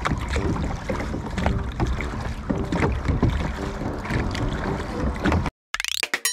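Small inflatable mini boat being rowed: the oars work with short repeated knocks over water and wind noise on the microphone. The sound cuts off abruptly about five and a half seconds in, followed by a short rising swish of a transition sound effect.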